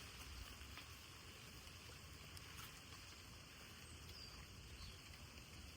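Faint, steady hiss of light rain falling outdoors, with a few soft ticks of drops.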